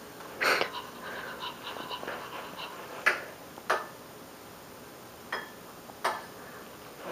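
Zoomer robot dog toy's sound effects: about five short breathy bursts spread over several seconds, the first about half a second in and the loudest.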